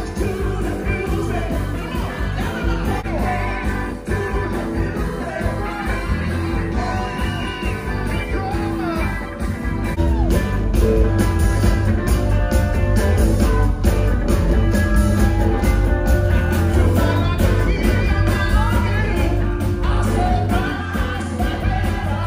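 Live band playing with a singer: electric guitar, bass guitar, keyboards and drums through a PA. The music gets louder about ten seconds in.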